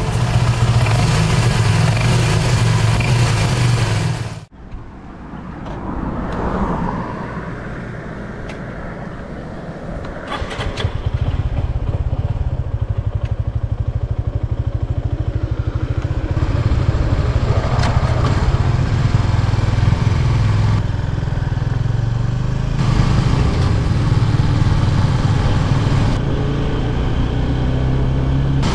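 A small motorcycle engine running with a steady low note, rising and falling in two brief revs. The first four seconds hold a louder, fuller sound that cuts off abruptly.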